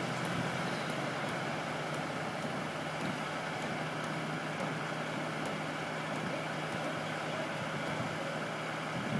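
Truck-mounted crane's engine running steadily with a low hum, mixed with a steady outdoor hiss.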